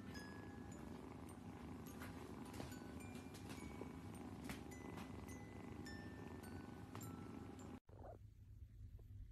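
Kitten purring steadily and faintly while being stroked on the head, with soft chiming music behind it. The chiming stops abruptly near the end, leaving only a low hum.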